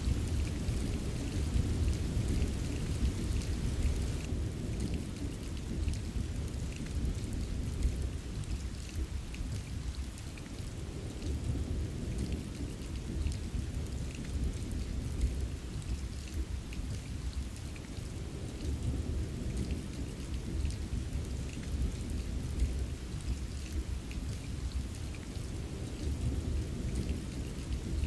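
Steady rain ambience with small drop ticks over a continuous low rumble of rolling thunder that swells and eases.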